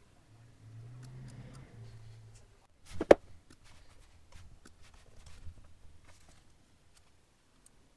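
Scattered light clicks and handling noises at a desk, with one sharp knock about three seconds in, the loudest sound, like a hand or object striking the desk or laptop. A low hum sounds for the first two seconds.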